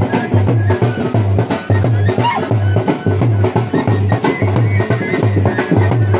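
Dhol drumming for folk dancing: a fast, steady beat with a deep bass stroke about twice a second under quick lighter strokes.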